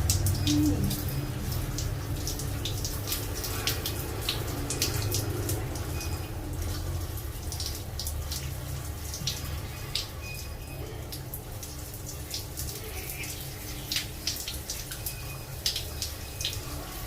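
Water splashing and dripping during a wash at a sink or tap, with many small irregular drips and clicks.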